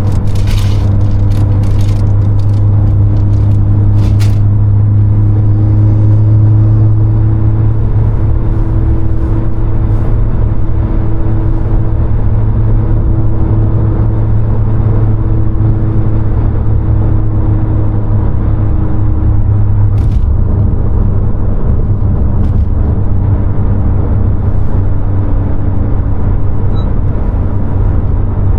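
2020 Honda Civic Si's 1.5-litre turbocharged four-cylinder engine running at a steady speed with road noise, as in cruising, the engine pitch holding nearly constant. A few sharp clicks or knocks in the first few seconds, and single ones about 20 and 22 seconds in.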